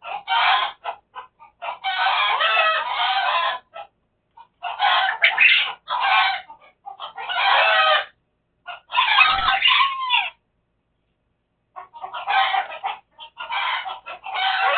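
Chickens calling: a rooster crowing, with clucking, in about seven long calls one after another separated by short pauses.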